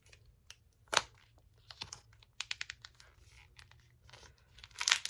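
Protective plastic film being peeled off a new hair dryer, with scattered crackles and clicks, one sharper click about a second in and denser crinkling near the end.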